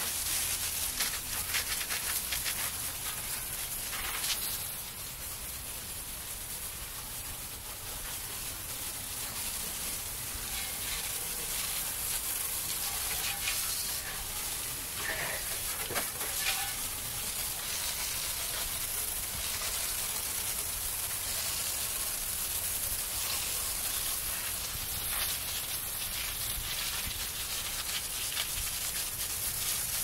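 Garden hose spray wand spraying water onto the ground, a steady hiss that starts suddenly and swells a little as the spray moves. The water is washing sand off the ground.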